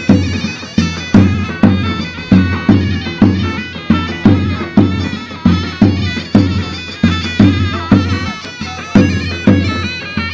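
Turkish folk dance music on zurna and davul: a loud, reedy shawm melody over heavy bass-drum strokes about twice a second.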